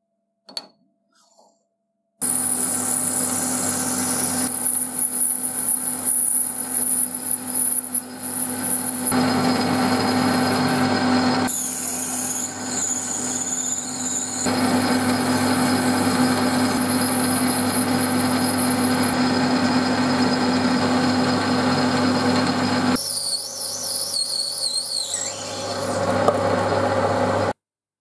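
Metal lathe running while machining brass stock, with a twist drill boring into the brass. It gives a steady motor hum under a wavering high whine, and the sound shifts abruptly several times where the machining steps are cut together.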